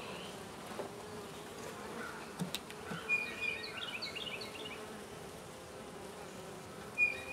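Honey bees buzzing steadily around a comb frame lifted out of an open hive, a low continuous hum.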